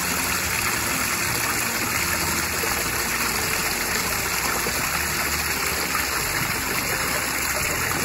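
A small waterfall spilling over rocks into a shallow stream: a steady splashing of running water.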